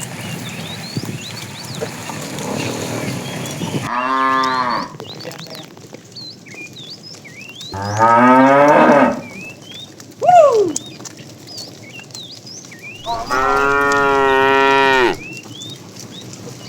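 Cattle mooing: four calls, at about four, eight, ten and thirteen seconds in. The second rises in pitch, the short third one falls, and the last is held steady for about two seconds. Short high chirps are heard in between.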